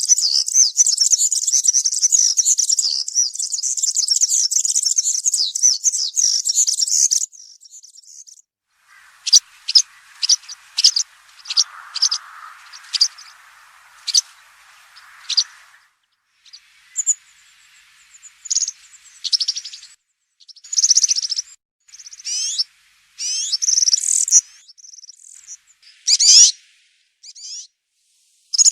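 European serin singing: a fast, high-pitched jingling trill that stops abruptly about seven seconds in, followed by a string of short sharp notes and then brief bursts of song.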